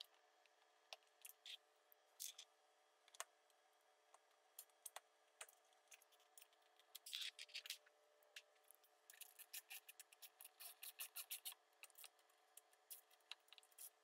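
Faint scattered clicks and light knocks as the skid guard is fitted back into place under the hitch and its bolts are put in. A little past the middle comes a run of quick, even clicks, about five a second, lasting some three seconds.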